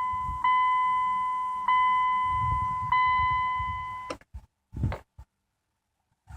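A car's electronic warning chime sounding over and over, a steady tone re-struck about every second and a quarter, which stops about four seconds in. It is followed by a few clicks and a soft thump.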